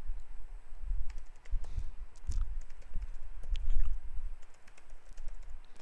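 Typing on a computer keyboard: an irregular run of quick key clicks over a low rumble.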